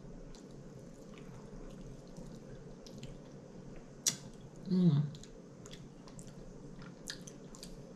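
Close-up eating sounds of a person taking a forkful of potato salad: soft wet mouth and chewing noises, a few light fork clicks, and a brief falling 'mm' hum just before five seconds in.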